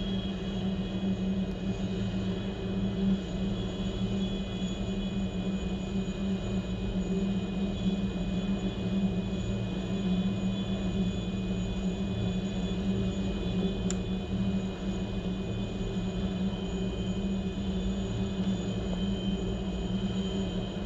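Rescue helicopter on a helipad with its engine running and rotors turning, not yet shut down: a steady low hum and rumble under a high, even turbine whine, heard through a window.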